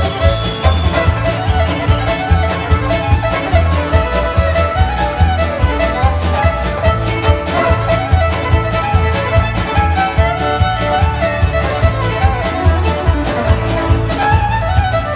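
Live country band playing an instrumental passage, a bowed fiddle carrying the lead over electric and acoustic guitars and a steady beat.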